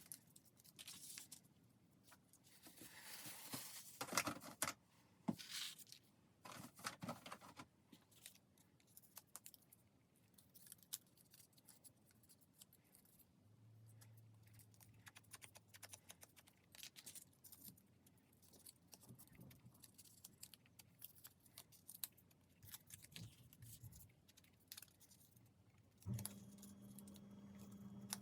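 Faint paper-craft handling: scattered rustles, snips and small taps of paper and scissors on a work surface, busiest in the first few seconds. Near the end a steady low hum starts suddenly.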